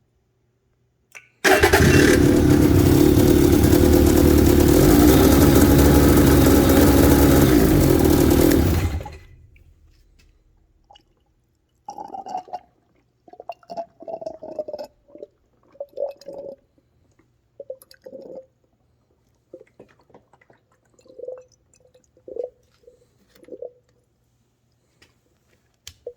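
Powderfreaks 912 big-bore two-stroke snowmobile engine with a Jaws exhaust starts about a second and a half in, runs steadily for about seven seconds, then shuts off abruptly. Afterwards come scattered short gurgles and a falling squeal as trapped air burps out of the freshly filled coolant system.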